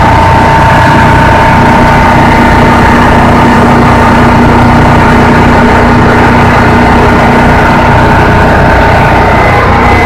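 Detroit Diesel engine of an FG Wilson generator set running steadily, loud and close, inside the genset enclosure: a dense low diesel drone with a steady whine riding on top.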